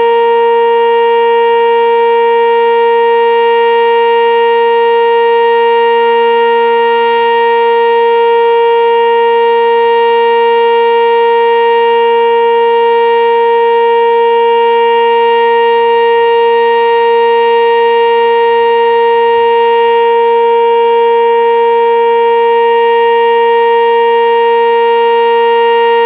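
Sentry 10V2T two-tone electromechanical storm siren sounding its steady Alert signal, loud and holding one constant chord without rising or falling.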